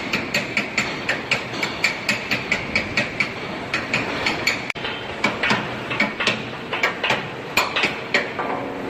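Steel being struck repeatedly, likely a hammer tapping crane wheel parts into place: evenly spaced metallic strikes, about three or four a second, each with a short ringing note.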